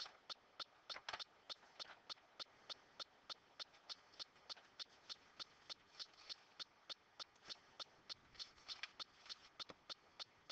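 Near silence with a faint, very even ticking, about three ticks a second, and a few slightly louder clicks.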